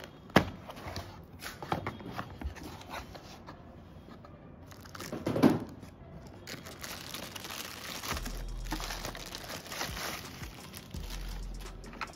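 Cardboard box being opened and the plastic wrap around a new router crinkling as it is handled and pulled off. A sharp knock about half a second in and a louder rustle about five and a half seconds in; the crinkling is densest from about six and a half to ten seconds.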